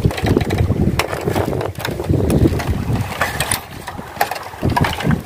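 Wind buffeting the microphone in uneven low rumbles, with a few sharp clicks.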